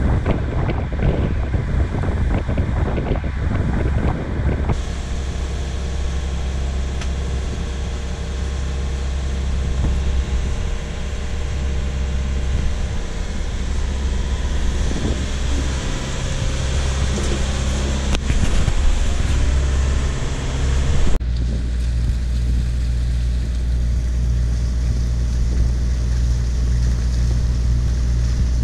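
A boat's inboard engine running steadily, a low drone, with wind buffeting the microphone for the first few seconds. The sound changes abruptly about five seconds in and again about twenty-one seconds in.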